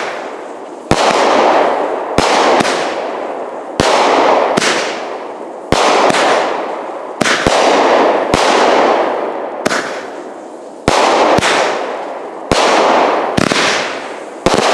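Consumer firework cake firing a volley of shots about one a second, each aerial shell followed by a crackling burst that fades over a second or two.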